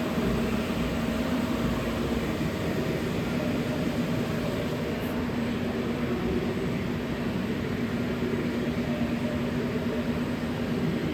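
Biglia B 1200 CNC lathe running with a steady mechanical hum; a fainter higher tone drops away about halfway through.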